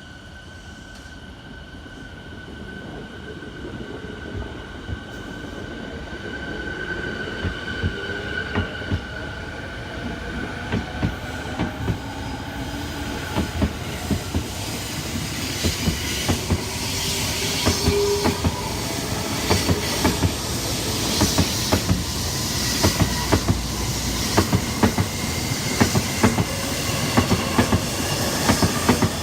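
E217 series electric multiple unit pulling out and gathering speed, getting steadily louder. Its motors whine, and the wheel clicks over rail joints come faster and louder as it accelerates.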